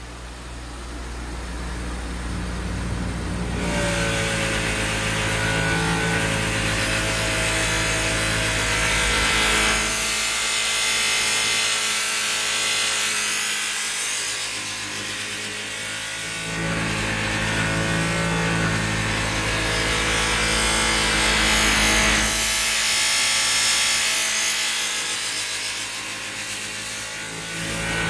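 Electric buffer motor running with a steady hum while a guitar's frets are pressed against the spinning buffing wheel to polish them. The contact makes a loud rushing rub that starts about four seconds in, eases off around ten seconds, comes back near fifteen seconds and again near the end.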